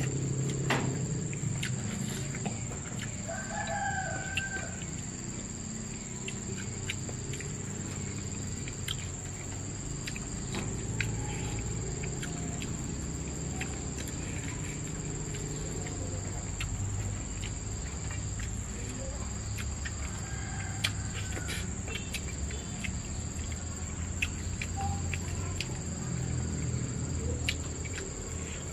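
A rooster crowing twice, some sixteen seconds apart, over a steady high-pitched insect drone, with scattered small clicks.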